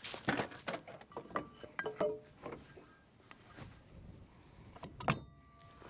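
Metal tools and parts clinking and knocking during a combine repair, several light clinks with brief metallic ringing, then one sharp metal strike about five seconds in that rings on.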